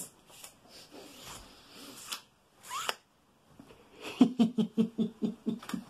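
Soft rustling of clothing as a man moves his arms, then a short rising squeak, and in the second half a quick run of short voiced sounds from him, about ten a second.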